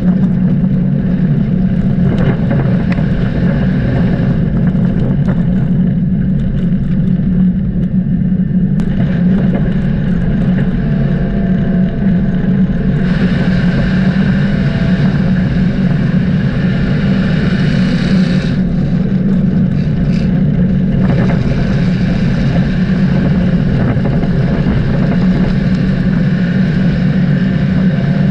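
Dirt-track race car engine running with a loud, steady drone, and a hiss over it that cuts in and out abruptly several times.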